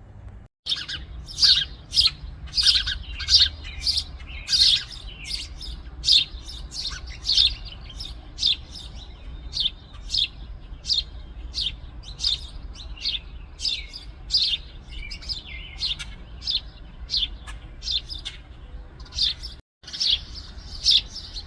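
House sparrows chirping over and over, sharp repeated chirps about one to two a second, with two brief dropouts, one just after the start and one near the end.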